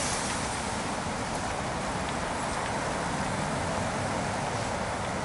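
Steady hum of city road traffic, cars passing along a street.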